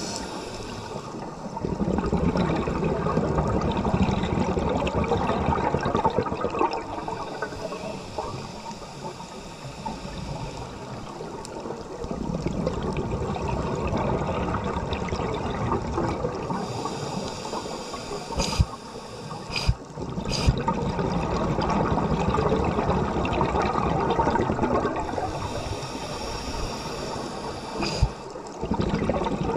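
Rushing water, a steady noisy wash that swells and fades, with a few sharp knocks about two-thirds of the way in and once more near the end.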